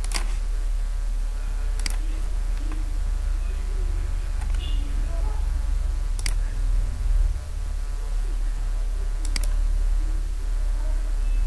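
Computer mouse clicks: a few sharp, separate clicks and one quick double click, over a steady low electrical hum.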